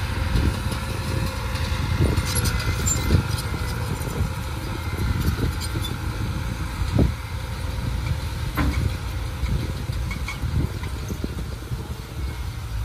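Heavy diesel earthmoving machinery running with a steady low rumble, and a few sharp knocks over it.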